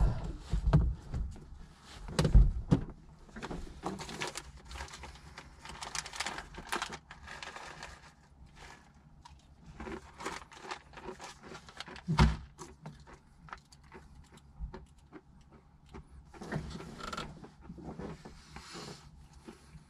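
Close handling noises: rustling and clicking of packets and paper being picked up and turned over, with a sharper thump about two seconds in and another about twelve seconds in.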